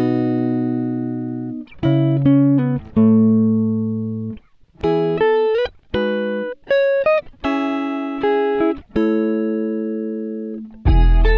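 Background music: plucked notes and chords, each starting sharply and ringing out as it fades.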